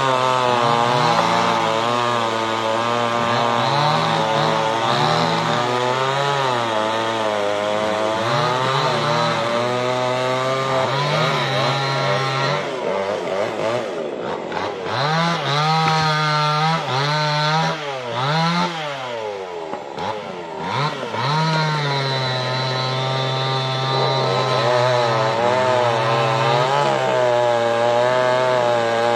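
Chainsaw engine running and being revved up and down over and over, its pitch rising and falling; around the middle it drops lower and quieter for several seconds before revving high again.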